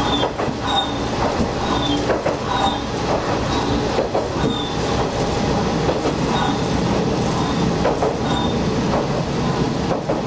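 Diesel railcar running along jointed single track, heard from the cab, with a steady low engine and running rumble. Wheels click over rail joints every second or two, and short high squeaks recur about once a second.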